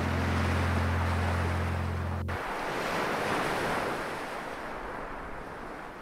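Sea waves surging and breaking against rocks, a steady rushing wash that slowly eases off. A held low music chord sounds under it and cuts off about two seconds in.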